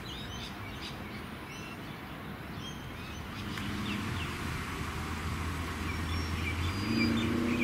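Birds chirping in short calls over a steady outdoor background, with a low mechanical hum coming in about halfway through and shifting higher near the end.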